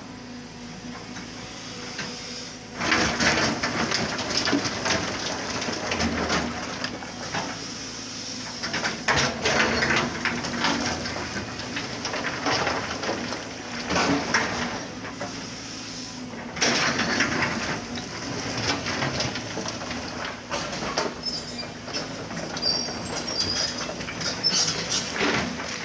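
Excavator engine running steadily, with repeated bursts of loud rattling and clattering lasting a second or two each as the machine works the load.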